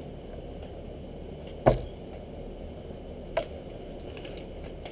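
Two short knocks from items being handled on a table: a sharp one about a second and a half in and a fainter one about halfway through, over a steady low hum.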